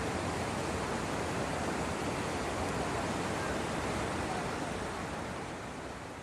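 Heavy rain pouring down, a dense, steady hiss that begins to fade near the end.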